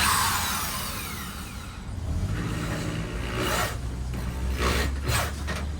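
Power drill driving a screw into a wooden board. It starts with a loud burst, then the motor runs steadily with a low hum for about three seconds, broken by a few short, sharp bursts.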